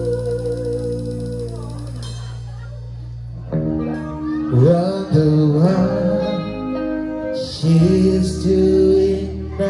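Live band music with a singer. A held sung note and chord die away about two seconds in, and after a short lull the singing and band come back in louder.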